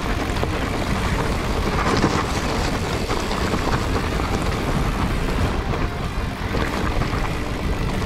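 Wind rushing over an action camera's microphone while a mountain bike is ridden fast on a trail: a steady, rough noise with no clear tones.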